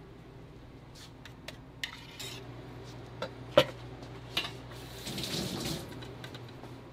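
A knife blade and utensils clinking against a melamine dish and metal tray: several light clicks and one sharp clink about halfway through. Near the end comes a short rustling patter as small cubes are tipped from a plastic cup.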